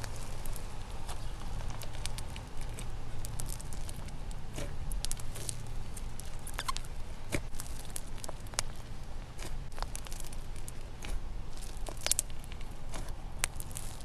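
Slime being squeezed and stretched by hand in a plastic tub, giving off irregular sticky clicks and small pops, several a second.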